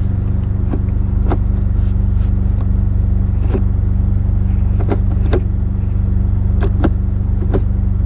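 Clicks and clunks of a Honda Civic Si's six-speed manual gear shifter being worked through the gears, about ten at uneven intervals, over the steady hum of the engine idling.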